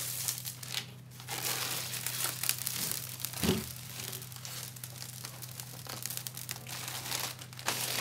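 Blue protective plastic film being peeled off a 1/8-inch clear plexiglass panel and bunched up in the hand: a continuous crinkling and crackling with some tearing.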